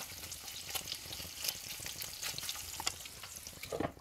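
Pork pieces and garlic sizzling and crackling in hot oil in a pan, stirred with a wooden spatula. Just before the end a glass lid is set on the pan with a short ring, and the sizzle turns quieter and duller under it.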